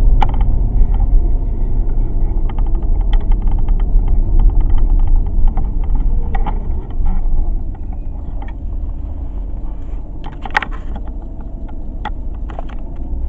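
Mercedes CLK 63 AMG's 6.2-litre V8 running on the road, a deep low drone that eases off about seven seconds in, with scattered light clicks and knocks. The engine is running without misfire at this point.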